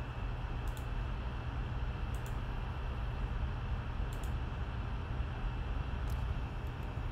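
Steady low background hum with a few faint, sparse keyboard clicks as a command is typed and run in a terminal.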